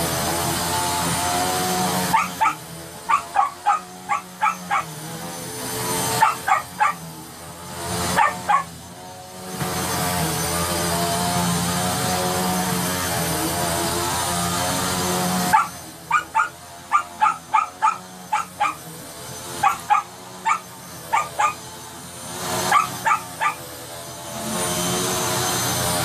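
An upright vacuum cleaner runs on carpet with a steady drone. It alternates with a small dog's sharp, high barking, fired in quick volleys of several barks whenever the vacuum's noise drops low: the dog barking at the vacuum.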